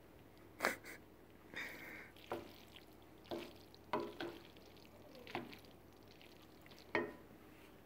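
Wooden spoon knocking and scraping in a pan of pasta and peas as it is stirred: about eight short, separate knocks and scrapes, irregularly spaced.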